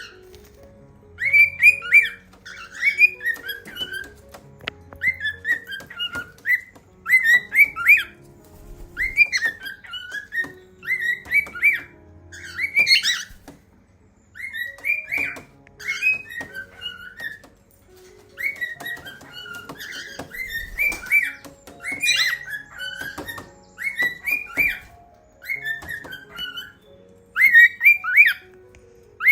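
Cockatiels whistling and chirping, short rising-and-falling whistled phrases repeated every second or two, with low sustained notes underneath.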